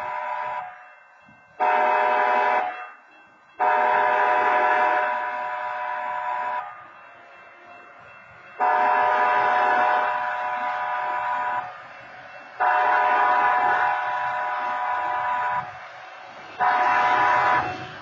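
Automated wayside horn at a railroad grade crossing sounding a chorded train-horn blast again and again to warn road traffic of an approaching train. Most blasts are about three seconds long, with a couple of short ones, separated by gaps of about a second.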